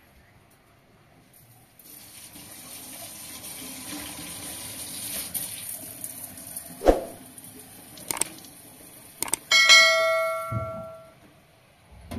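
Steady running water like a tap into a sink, with a few sharp knocks, then a metal object clangs about nine and a half seconds in and rings out briefly with a bell-like tone.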